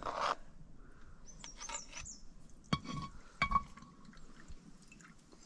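A few sharp metallic clinks, ringing briefly, of spoons and utensils against metal plates and cooking pots. High bird chirps come about a second and a half in.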